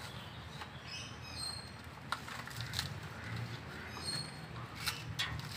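A sun bear gnawing and tearing at a coconut husk with its teeth, giving scattered irregular crunches and sharp clicks.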